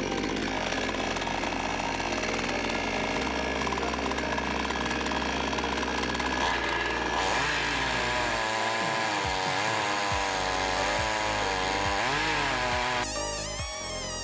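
HAIGE HG-F5200 52cc two-stroke chainsaw running in a chainsaw mill, ripping a board lengthwise from a rotten pine log. About halfway through, its pitch starts to waver up and down as the cut loads it.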